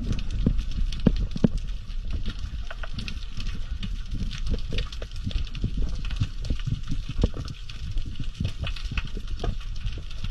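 Underwater sound of a diver harvesting sea urchins: a steady low rumble of water moving against the camera, with many irregular sharp clicks and knocks as the metal urchin tool and gloved hands work the urchins off the rock and into a mesh bag.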